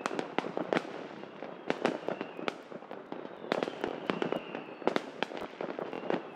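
Fireworks exploding all around, a rapid irregular string of sharp bangs over continuous crackling.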